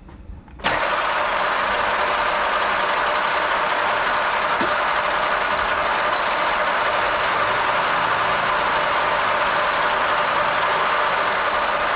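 A metalworking machine tool is switched on less than a second in and runs steadily at drilling speed, its motor and gear train giving a constant mechanical whir.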